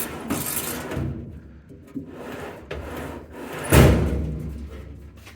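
Steel drawers of a Knaack 49 rolling workbench toolbox sliding on their rollers, then a loud metal bang about four seconds in that rings and fades away as a drawer or door is shut against the steel box.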